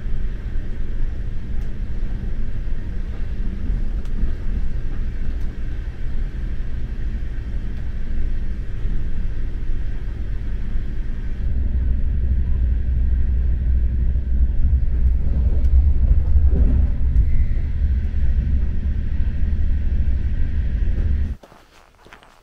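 A loud, steady low rumble that grows heavier about halfway through and cuts off abruptly near the end.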